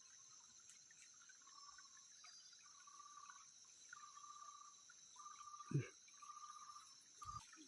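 Faint outdoor insect chorus: a steady high buzzing, with a short call repeated about once a second. A soft low thump near the end is the loudest moment.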